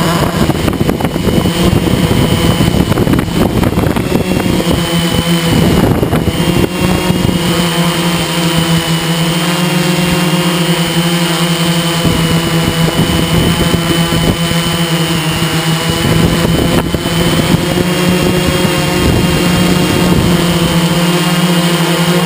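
Multirotor drone's electric motors and propellers running steadily in hover, heard from the camera on the drone: a steady hum under a high whine that wavers slightly. Wind buffeting on the microphone is heavy over the first eight seconds or so.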